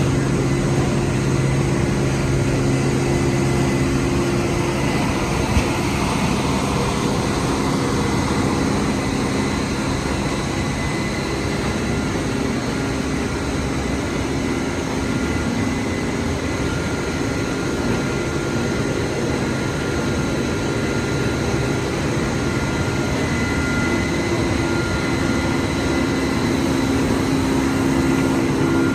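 Steady machinery noise from a rock wool production line: a continuous drone with a few held tones over a dense hiss, with no clear change.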